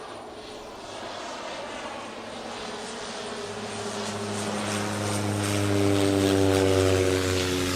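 Propeller aircraft engine passing overhead, a steady engine drone that grows steadily louder, then cuts off abruptly near the end.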